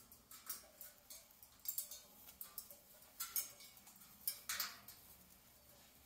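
An Amazon parrot makes a string of irregular short, sharp clicks and rustles as it shifts from a hunched, wings-out pose to standing upright on its cage top. A longer rustle comes about four and a half seconds in.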